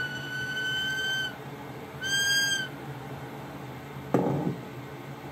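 A steady, high whistling tone with overtones cuts out about a second in and sounds once more briefly around two seconds. About four seconds in comes a single sharp knock with a short ring.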